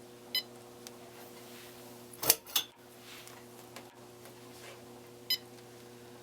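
Sony SPP-N1000 900 MHz cordless phone handset giving two short electronic beeps about five seconds apart, over a steady low hum. About two seconds in, two sharp plastic knocks from the handset being handled.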